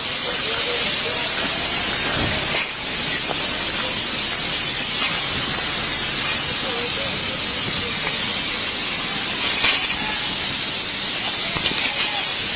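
A steady, loud hiss, with faint voices calling in the distance.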